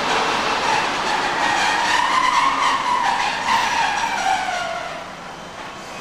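Train wheels squealing on the rails: a high metallic screech that rises in pitch and then slides down over about three seconds, over the rumble of rolling railway cars. It fades near the end.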